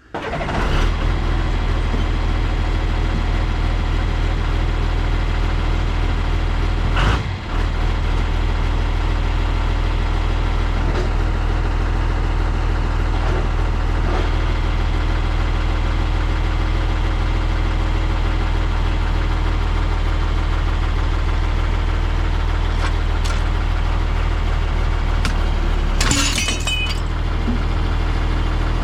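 An engine idling steadily, with a brief knock about seven seconds in and a short, harsh noise near the end.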